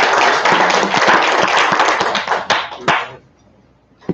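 Audience applauding, with a few louder single claps near the end, dying away about three seconds in. A single sharp thump right at the end.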